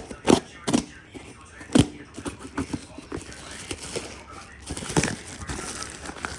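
A parcel being unpacked by hand: a quick run of sharp taps and clicks, the strongest in the first two seconds, then lighter crackling and rustling of plastic and cardboard packaging.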